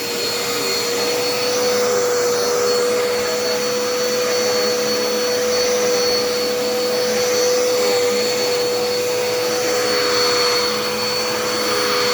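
Dirt Devil Endura Reach vacuum cleaner running steadily while vacuuming, a steady high motor whine over loud rushing airflow.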